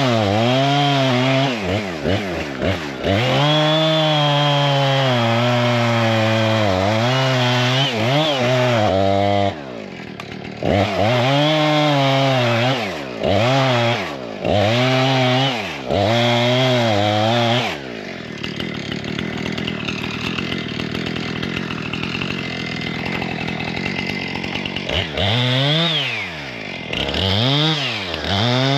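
Two-stroke chainsaw worked in repeated throttle bursts, its pitch rising and falling as it cuts into a beaver dam. The saw drops to a ragged idle for several seconds past the middle, then revs up again near the end.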